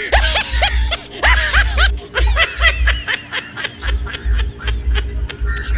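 Background music with a steady thumping beat, under a rapid, repeated snickering laugh, quicker and thinner from about two seconds in.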